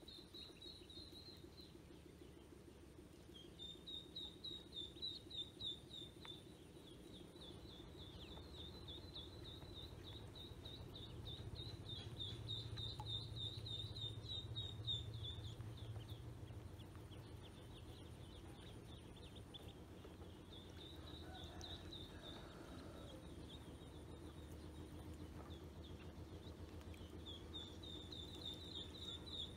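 Ducklings peeping in runs of quick, high chirps that come and go, over a faint low hum.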